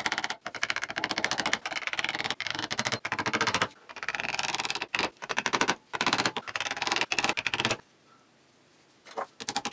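Hand wood chisel chopping and paring a hexagonal mortise into a black walnut knob: a rapid, unbroken run of sharp clicks, stopping for about a second near the end and then starting again.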